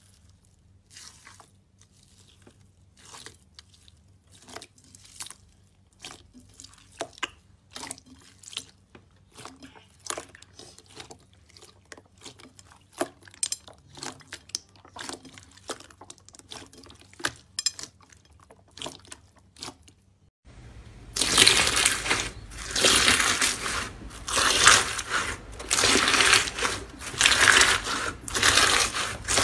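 Hands squishing and pressing blue bead-filled slime, giving scattered sharp crackles and pops that grow denser. About twenty seconds in, this cuts suddenly to much louder, dense, continuous crunching as hands squeeze a fluffy white slime.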